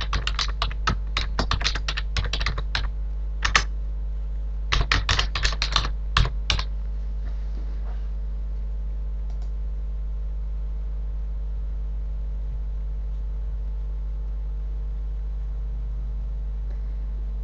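Typing on a computer keyboard: quick runs of key clicks entering an Apple ID and password, stopping about six and a half seconds in. A steady low hum runs underneath throughout.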